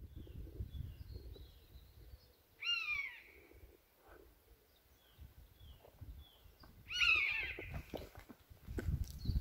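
Bird of prey calling: two loud, drawn-out calls that slur downward in pitch, the second about four seconds after the first. Faint short high chirps and a low rumble run underneath.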